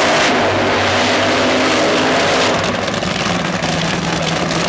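Supercharged nitromethane Funny Car engine running hard during a burnout, very loud. About two and a half seconds in it drops a little and settles into a steadier low drone.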